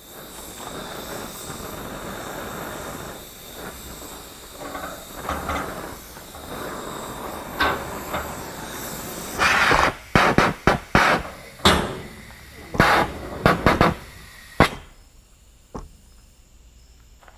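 Oxy-fuel torch hissing steadily for about nine seconds while heating steel pipe, then a run of sharp, loud metallic knocks and clanks over the next five seconds.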